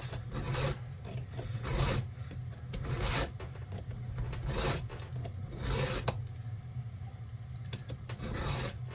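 Hand file rasping back and forth across the cutters of a chainsaw chain, in strokes roughly one a second, sharpening teeth dulled by hitting a rock or a nail. A steady low hum runs underneath.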